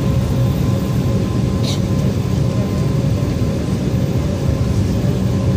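Airliner cabin noise while taxiing: a steady low rumble from the engines with a steady whine over it. About two seconds in there is a brief high hiss.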